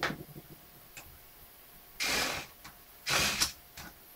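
Hands working the LCD panel in an HP 650 laptop's display lid, plastic and metal handling noise: a sharp click at the start, a lighter click, then two scraping rasps of about half a second each, a second apart.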